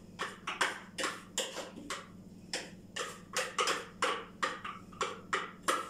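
Repeated short scraping strokes, about two to three a second, from a metal hand-held kitchen tool working ta'ameya (falafel) paste, over a steady low hum.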